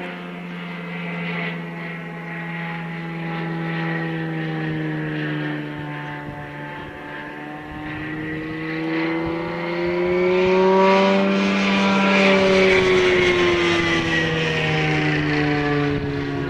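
Propeller engine of a biplane in flight: a steady drone whose pitch slides up and down as it turns. It grows louder and higher about ten seconds in, then drops away again.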